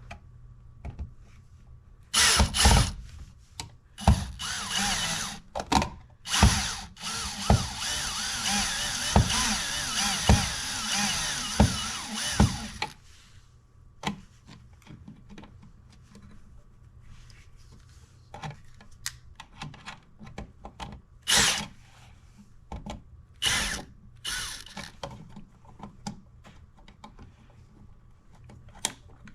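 Power drill running in short bursts, then one longer run of about nine seconds with its motor pitch wavering under load. After that come scattered clicks and knocks of handling.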